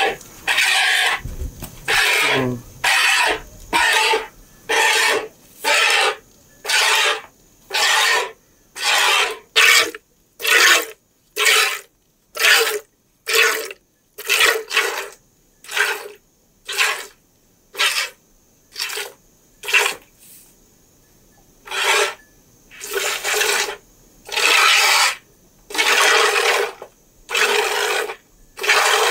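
A cow being milked by hand into a plastic bucket: jets of milk squirt into the pail in a steady rhythm, about one and a half hissing squirts a second, with a pause of about two seconds about two thirds of the way through.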